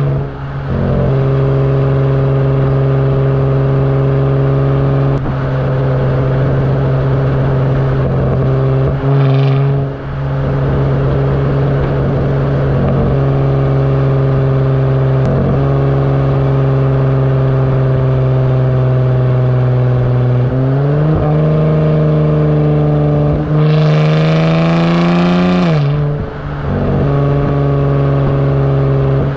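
Straight-piped 3.6-litre V6 of a 2018 Dodge Charger GT, muffler and resonator deleted, holding a steady exhaust note while cruising. About two-thirds of the way in the note rises as the car accelerates, then falls back to the steady cruise note near the end.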